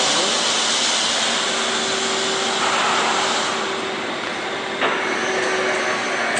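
Youji YV1600 CNC vertical boring mill running under a program: a steady machine hum with a loud hiss that starts suddenly and changes character twice.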